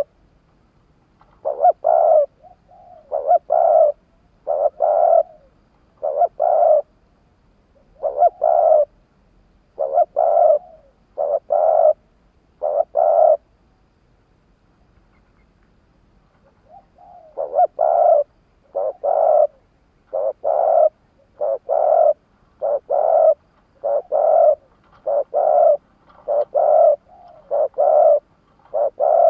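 Spotted dove cooing: a run of short, repeated coos about one a second. A silent pause of three or four seconds comes near the middle, then a steady, quicker run of coos.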